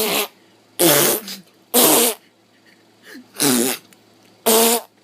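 A series of five loud, buzzy farting noises, each under half a second long and spaced roughly a second apart.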